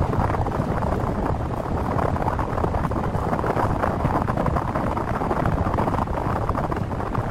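Steady rumbling noise with no clear tone.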